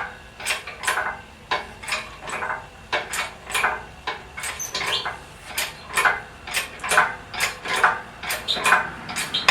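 Metal clinking and clanking in a steady rhythm of about two a second, from the engine hoist being worked.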